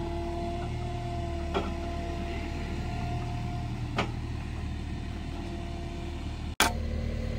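Diesel engine of a Kubota tracked skid steer running steadily while its boom holds a wooden pole upright, with a steady whine that stops a little past halfway. A few sharp clicks, and a loud knock near the end.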